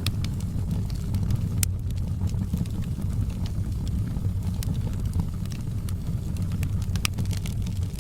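Wood fire burning: a steady low rumble of flames with sharp crackling pops scattered through it, the loudest about one and a half seconds in and again near the end.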